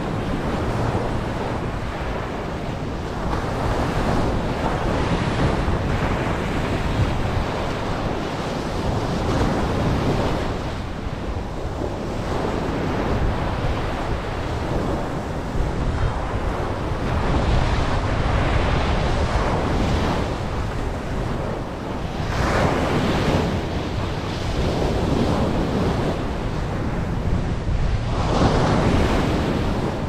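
Ocean surf breaking and washing up a sandy beach, swelling every few seconds as each wave comes in. Wind rumbles on the microphone throughout.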